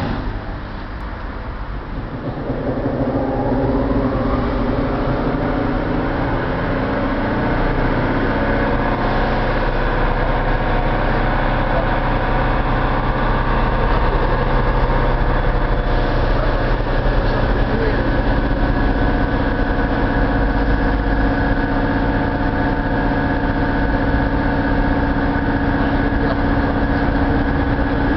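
A standing SNCF BB 15000 electric locomotive starting up its auxiliary machinery. A click comes first, then about two seconds in a hum rises in pitch over a couple of seconds and settles into a steady hum and whine of several tones.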